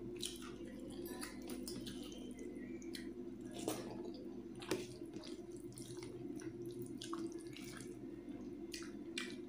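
Fingers mixing rice into thin, watery chicken curry on a steel plate make soft wet squelches, with a few sharp clicks and some chewing. A steady low hum runs underneath.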